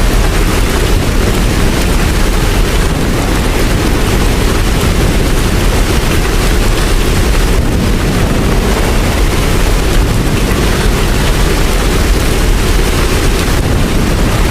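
Steady heavy rain falling, a dense even hiss with a deep rumble underneath.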